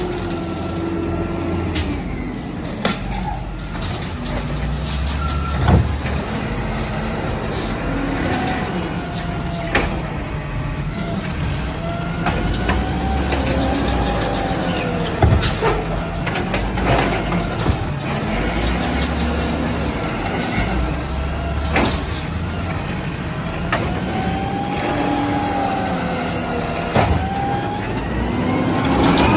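Peterbilt 320 automated side-loader garbage truck with a compressed-natural-gas engine, running as it services curbside carts. The whine of the hydraulic arm rises and falls again and again, broken by sharp knocks of carts banging and by air-brake hisses. Near the end the engine and whine climb in pitch as the truck pulls away.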